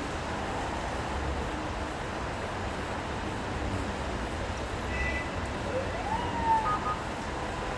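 Street ambience in the rain: a steady hiss of rain and wet traffic over a low rumble. A brief rising tone sounds about six seconds in.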